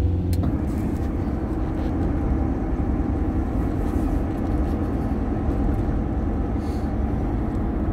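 Steady engine and road noise heard inside a van's cabin while it is driving, a low even drone with no breaks.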